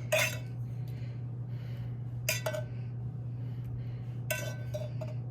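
Cutlery clinking against a plate in three short bursts about two seconds apart, each with a brief ring, over a steady low hum.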